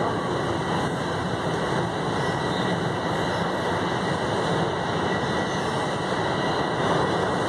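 Steady running noise of a Toronto Rocket subway train, heard from inside the car as it travels through the tunnel between stations.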